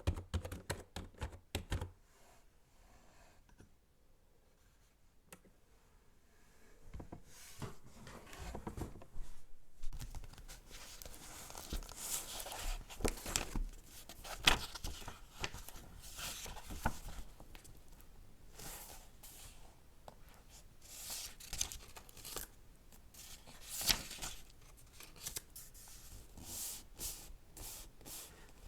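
Computer keyboard typing for about the first two seconds, then a pause, then paper sounds of a book being handled: pages rustling and turning, with sharper crinkles and taps.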